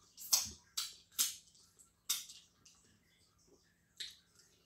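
Short wet smacking and sucking sounds from fingers being licked clean of sauce while eating by hand: four quick smacks in the first two seconds and one more near the end.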